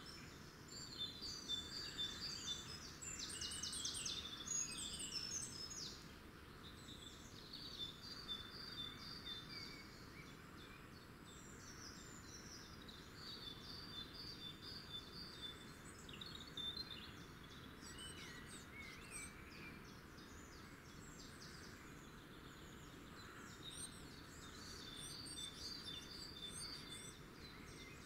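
Small birds chirping and singing in quick twittering phrases over a faint steady outdoor hiss, livelier and louder for the first few seconds.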